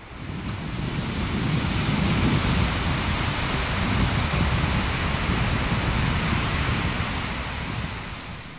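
Sea surf breaking and washing onto a sandy beach: a steady rush of waves that builds up over the first second or so.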